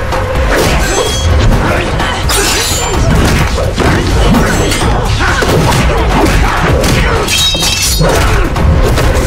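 Action-scene soundtrack: a dramatic music score under a rapid run of fight sound effects: punches, thuds and several sharp crashing, shattering hits.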